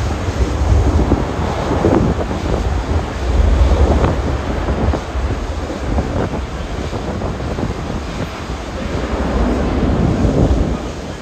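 Jet airliner engine noise, a heavy rumbling roar, with wind buffeting the microphone in uneven gusts.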